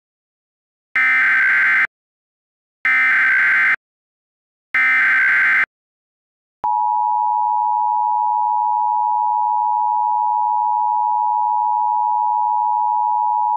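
Emergency Alert System header: three one-second bursts of SAME data tones, then the EAS two-tone attention signal, a steady tone starting about six and a half seconds in. It announces a Child Abduction Emergency alert.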